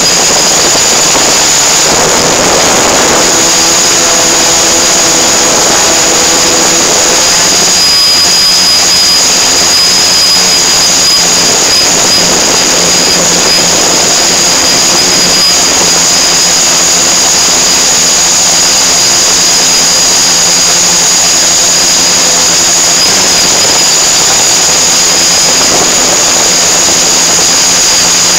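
Small multirotor drone's motors and propellers running steadily in flight, heard close on the aircraft: a loud, constant high whine over a lower even buzz.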